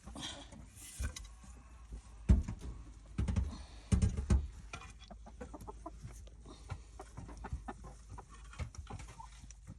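Hens clucking, over a run of knocks and scrapes; the loudest are a few heavy thumps about two to four and a half seconds in.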